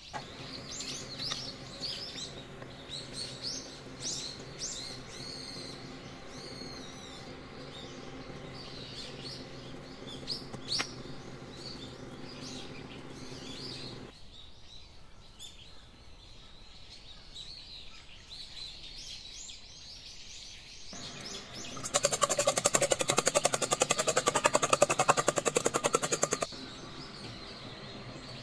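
Small birds chirping in quick high rising and falling calls over a low steady hum, thinning out about halfway through. Late on, a loud, fast, even rattling clatter runs for about four seconds.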